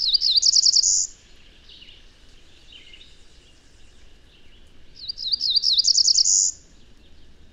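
Recording of a cerulean warbler singing twice, a variant song type: a few quick slurred notes, then the rising buzz that ends every song of the species. A steady faint hiss from the field recording lies underneath, with fainter bird notes between the songs.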